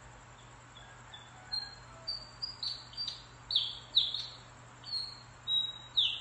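A bird singing: a run of short, high whistled notes, faint at first and louder from about a second and a half in, several of them sliding sharply down in pitch.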